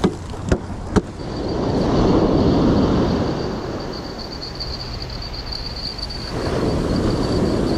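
Ocean surf washing up the beach in two swells, with three sharp clicks in the first second.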